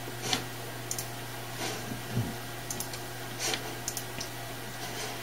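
Computer mouse clicking several times, mostly as quick double ticks of press and release, with a few softer brushing sounds, over a steady low hum.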